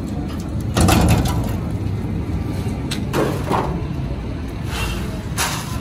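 Peanut roasting machine running with a steady low hum. Dry roasted peanuts rattle and scrape against the metal pan and perforated chute in a few short bursts, the loudest about a second in.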